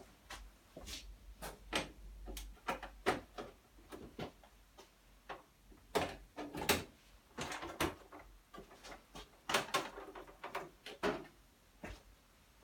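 Irregular clicks, knocks and rattles of hand work on a motorcycle's plastic fairing panels as fasteners and cable ties are undone.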